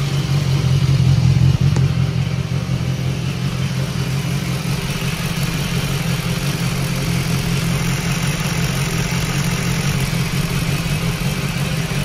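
A 2016 BMW S1000XR's inline-four engine idling steadily just after being started.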